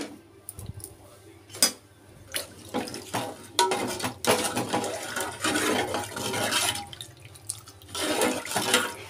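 A perforated ladle stirring a watery mix of herbs and vegetables in a metal cooking pot: the liquid sloshes and splashes in two long stretches. There are a few sharp clinks of the ladle against the pot, the loudest about one and a half seconds in.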